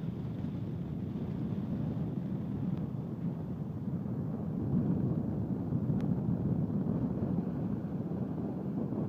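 Wind buffeting a phone's microphone: a low, uneven rumble that grows a little louder about halfway through.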